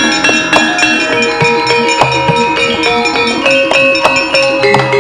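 Javanese gamelan playing: struck bronze metallophones and gong-type instruments sound note after note, each note ringing on.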